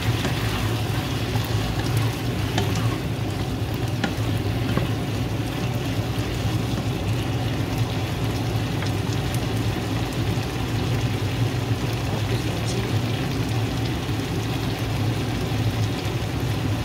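Pork belly stew in shrimp paste and tomato sizzling and bubbling steadily in a frying pan, over a steady low hum.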